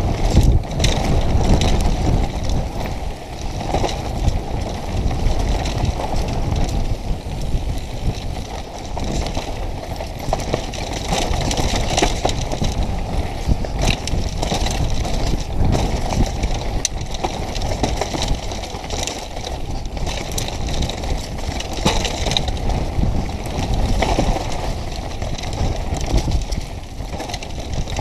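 Mountain bike riding a rough dirt singletrack heard from the bike itself: a continuous rumble of wind on the microphone and tyres over dirt, stones and dry leaves, with frequent small rattles and knocks from the bike over bumps.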